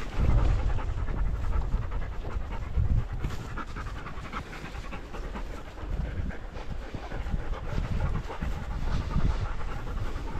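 A dog panting rapidly, with a low rumble underneath.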